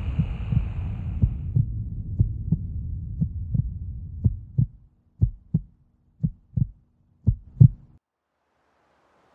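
Heartbeat sound effect: paired low thumps, lub-dub, about once a second, over a low rumble. The rumble fades out about halfway through, leaving the bare double thumps, which stop near the end.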